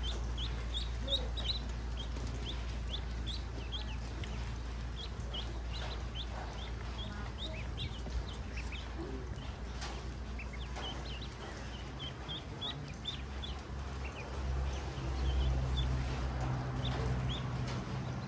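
Newly hatched ducklings peeping over and over in short, high chirps as they feed and drink, with a steady low hum underneath that swells briefly near the end.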